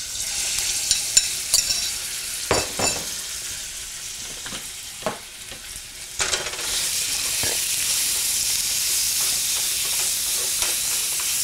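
Seasoned chicken pieces hitting hot oil in a non-stick frying pan and sizzling, with a few sharp knocks as they are scraped out of a glass bowl. About six seconds in, the sizzle grows louder and steadier as the pieces are stirred around the pan with a spatula.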